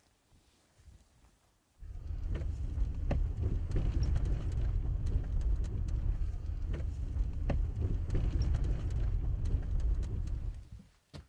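Car driving along a road, heard from a camera on the car: a heavy low rumble of road and wind noise with scattered knocks and clicks. It starts about two seconds in and cuts out near the end.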